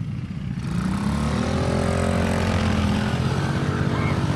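Small youth ATV's engine running under light throttle, its pitch rising and falling back about the middle.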